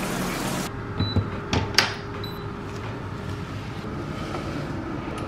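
Shower water running briefly, cut off under a second in. Then a smart towel warmer beeps twice, with a couple of sharp clicks and the soft rustle of a towel being pushed into its bucket, over a low steady hum.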